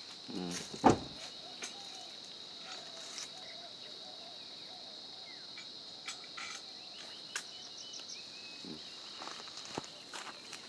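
Insects droning steadily at one high pitch, with scattered small clicks and knocks and one sharp click about a second in.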